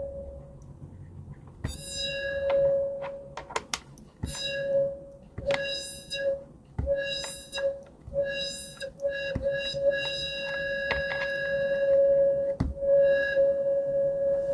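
Synthesized bell-like tone at one steady pitch with bright overtones, played over and over in short notes of varying length with clicks between them, and held for a couple of seconds near the end: a sound effect being tried out while it is made.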